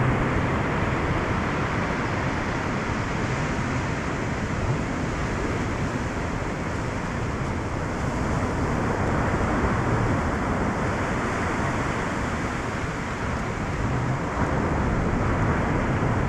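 Steady rushing of surf washing onto a sandy beach, mixed with wind on the microphone.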